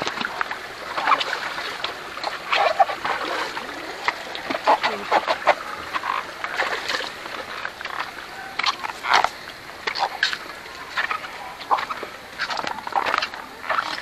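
Overlapping voices of many people, with scattered short shouts and calls coming irregularly.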